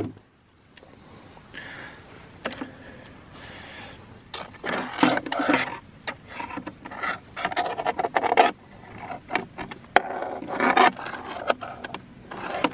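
Freshwater crayfish (koura) scrabbling inside a plastic chilly bin, its legs and claws scratching and scraping on the plastic walls and ice packs. It is quiet for the first few seconds, then comes in irregular bursts of scratching.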